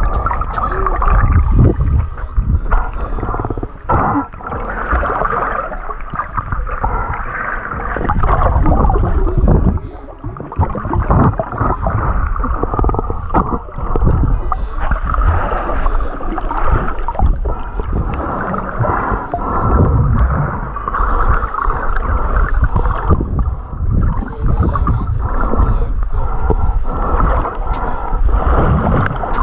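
Muffled water noise picked up by a camera held underwater, with gurgling and uneven low rumbling and thumps as the camera is moved through the water.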